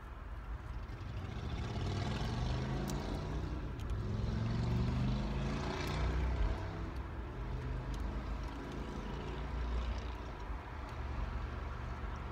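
A motor vehicle's engine passing by, rising in pitch and loudness to a peak about six seconds in, then dropping and fading away.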